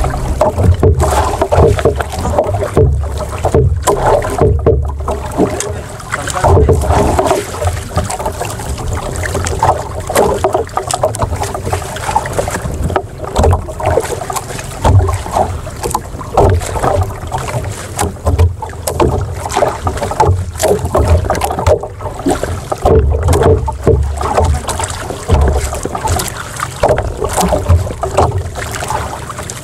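Wind buffeting the microphone in uneven gusts aboard a small outrigger boat, with choppy water slapping against the hull and outrigger.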